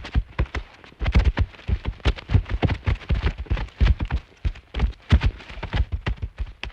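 Elephant footsteps: a steady run of heavy thuds, several a second and unevenly spaced.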